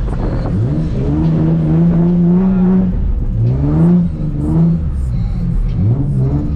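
Nissan 350Z's V6 engine revving up and down in waves under throttle while drifting: the revs climb and hold for about two seconds, drop, climb again about halfway through, dip, and rise once more near the end.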